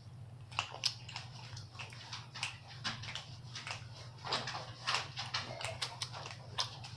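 Close-up chewing: irregular wet smacks and clicks of a mouth eating shrimp, over a steady low hum.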